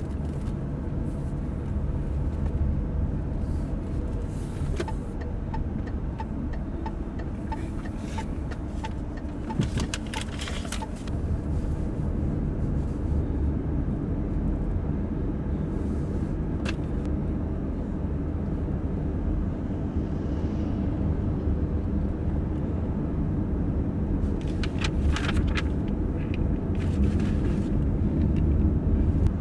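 Steady low rumble of a car driving along, with light ticking about twice a second for a few seconds and a few short clicks.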